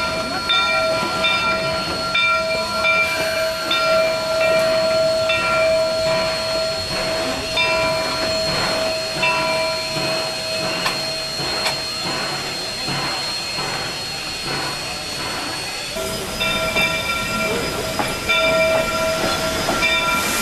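Polson Logging Co. No. 70 steam locomotive with its bell ringing steadily, about one and a half strokes a second, over a hiss of steam.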